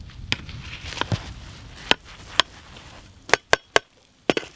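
Metal serving spoon knocking and clinking against a large metal cooking pot while scooping cooked mandhi rice: sharp separate knocks, with three in quick succession about three and a half seconds in.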